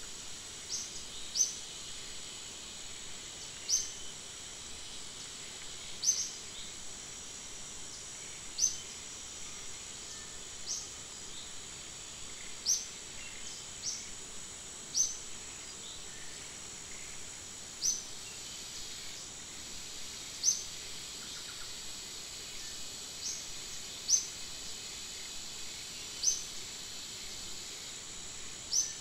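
A bird's short, sharp chirp repeated about every two seconds over a steady high insect drone.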